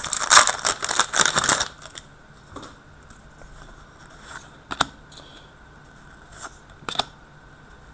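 Trading-card pack wrapper being torn and crinkled open for a couple of seconds, then a few short clicks and flicks as the cards are handled and thumbed through.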